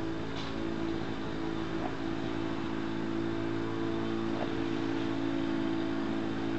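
A steady low motor hum, holding several even tones, with a few faint short ticks over it.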